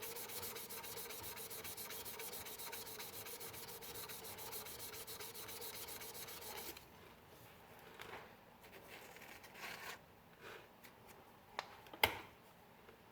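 Sandpaper rubbing against an acrylic pen blank spinning on a lathe: a steady scratchy sanding noise with a fast, even flutter. It stops about seven seconds in, leaving a few light handling clicks and one sharp click near the end.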